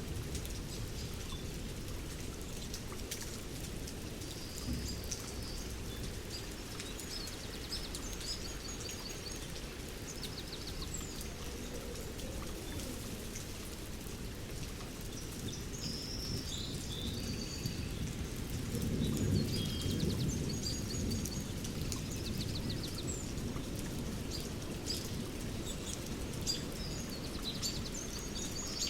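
Rain falling in a forest, with birds chirping and trilling throughout. A low rumble of distant thunder swells about two-thirds of the way through.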